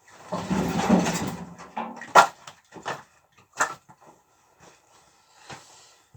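Split firewood logs being handled and stacked: a short clattering rustle, then several sharp wooden knocks as logs are set down one by one.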